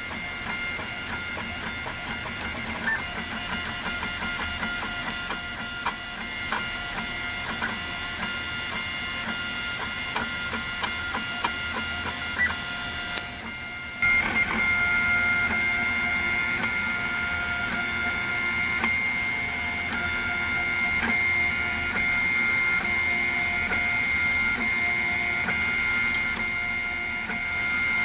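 3D printer's stepper motors whining in several steady pitches as the print head moves, with scattered faint clicks. About halfway through the sound steps up in level and the pitches change.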